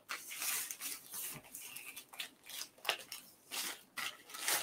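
White plastic poly mailer bag rustling and crinkling in irregular short bursts as hands work the packed contents out of it.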